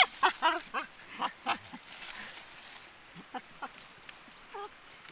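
Puppies whining and yelping: a quick run of short, high calls in the first second and a half, then a few fainter whimpers later.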